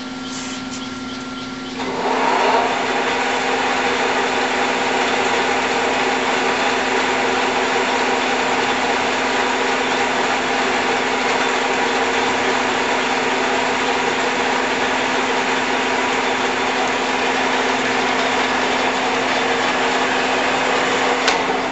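Clausing Colchester 21-inch geared-head lathe running under power: a steady motor hum underneath, and about two seconds in the spindle drive engages and the headstock gearing and chuck rise to a loud, even whir. Near the end there is a click and the sound begins to fall away.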